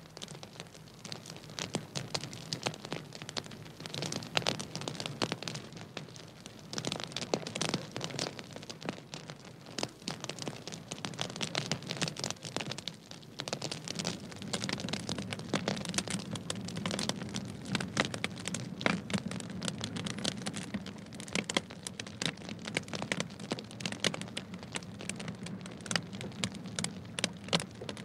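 Wood bonfire crackling and popping, a dense irregular run of sharp snaps over a low steady undertone.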